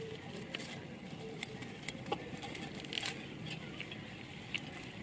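Firewood stove burning, newly lit: a low steady rush of flame with irregular sharp crackles and pops from the wood.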